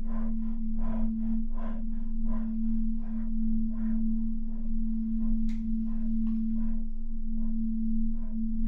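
Horror sound-design drone: a steady low hum under a soft rhythmic pulsing of about two to three beats a second that thins out, with one sharp click about five and a half seconds in.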